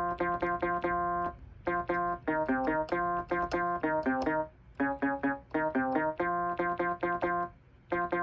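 Casio mini keyboard playing a quick melody of short, detached notes in phrases, with brief pauses about a second and a half in, around four and a half seconds in and near the end.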